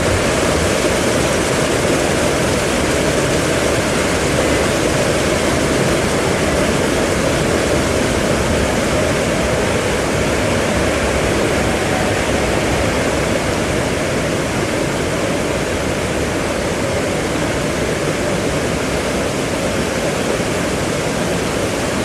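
Waterfall pouring: a loud, steady rush of falling water, heaviest in its low tones.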